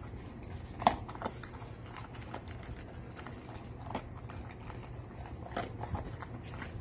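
Large dog eating dry dog food and chicken from a glass bowl: irregular crunching and clicking as it chews and its muzzle works in the bowl, with one sharper click about a second in.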